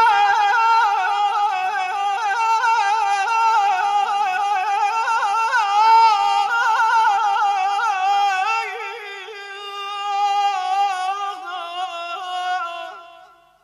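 Unaccompanied male voice singing Persian classical avaz in dastgah Homayoun: one long high phrase with quick tahrir ornaments rippling through the held notes, fading away near the end.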